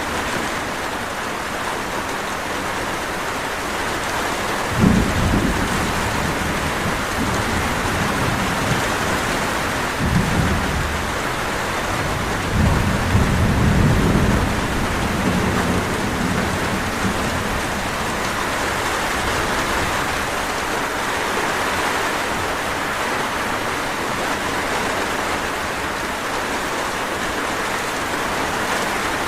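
Steady heavy rain with rolls of distant thunder: a sudden low rumble about five seconds in, another about ten seconds in, and a longer roll that fades out a few seconds later.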